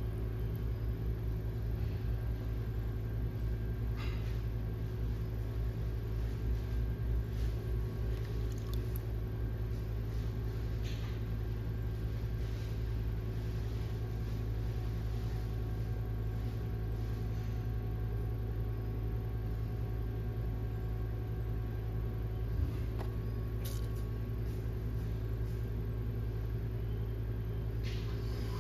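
Electric pottery wheel motor running with a steady hum, with a few light clicks and a single knock about two-thirds of the way through.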